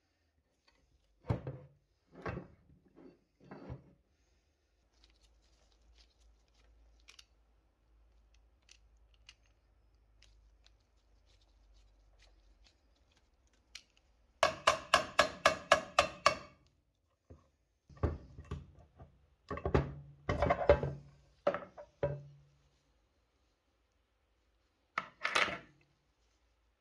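Parts of a vintage coin-counting machine being taken apart by hand. A few light knocks are followed by a quick run of about a dozen ringing metallic clicks, then metal rubbing and scraping, and two sharp clicks near the end.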